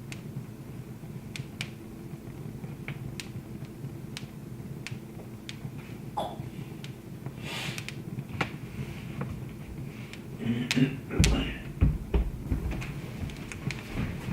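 Wood fire crackling, with sharp pops scattered every second or so over a low steady hum. A few heavy low thumps come near the end.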